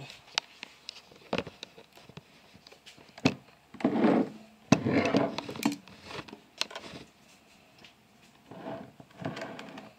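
Handling noise: a scatter of light clicks and knocks, with a few short muffled rustling patches, as a glass wine bottle is moved about and set down on a tabletop.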